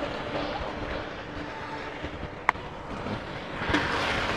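Street background noise with vehicles running, and one sharp click about two and a half seconds in.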